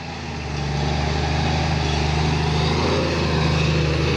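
Heavily loaded log truck's diesel engine working hard as the truck crawls through deep mud, a steady deep drone that builds over the first second.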